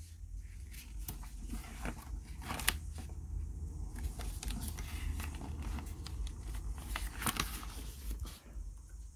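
Pages of a picture book being turned and the book handled: paper rustling and crinkling, with a few sharper flaps of a page, over a steady low rumble.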